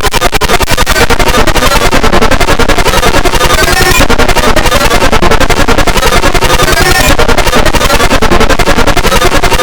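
Loud, heavily distorted electronic remix of an emergency alert alarm, chopped into rapid stuttering pulses that change pattern every second or so.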